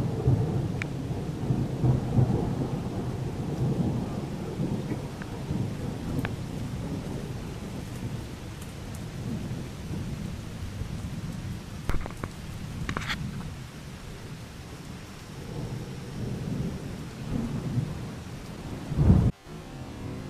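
Thunderstorm: thunder rumbling almost without a break over steady rain. There are a few sharp cracks about twelve and thirteen seconds in, and a louder burst near the end that cuts off abruptly.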